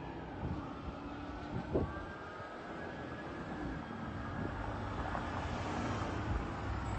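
Emergency vehicle siren wailing faintly and fading as the vehicle moves away, over a steady rumble of engines and traffic, with a short thump just under two seconds in.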